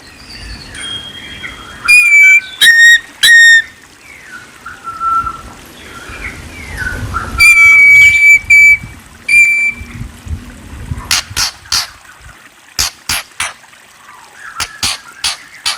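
A murai songbird singing: loud, clear whistled notes and gliding phrases. In the second half these give way to a run of sharp, clicking chip notes.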